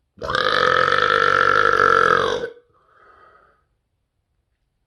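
A man's deliberate, loud belch, one long burp at a steady pitch lasting about two seconds and ending abruptly, followed by a faint breath.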